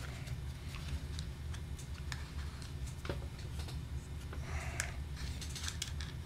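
Faint small clicks and light handling of a cork pad being picked from a plastic parts box and test-fitted into a metal oboe key cup, with a brief rustle a little before five seconds in. A steady low hum runs underneath.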